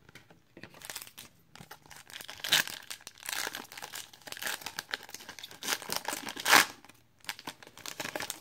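A trading card pack's foil wrapper being torn open and crinkled: a run of crackling rustles and tears, loudest about a third of the way in and again near three-quarters through.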